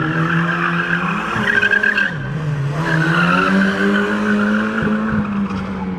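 Peugeot 205 rally car's engine held at high revs with its tyres squealing on the paving as it slides. The revs and the squeal drop briefly about two seconds in, then pick up again.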